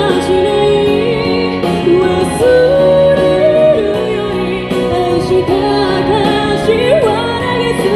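A woman singing into a handheld microphone over instrumental accompaniment, with a long held note in the middle.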